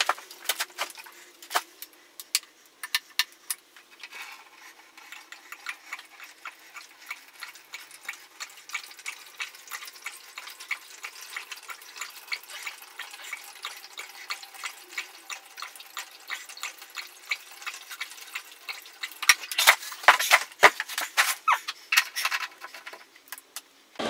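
Diesel being poured into the diesel heater's white plastic fuel tank: a continuous trickle of liquid with many small irregular clicks, and a few louder knocks near the end.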